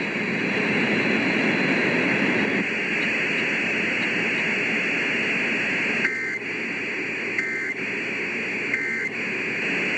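Hissing static over an AM radio broadcast. About six seconds in come three short two-tone data bursts of the Emergency Alert System, roughly 1.3 s apart: the end-of-message code that closes the required monthly test.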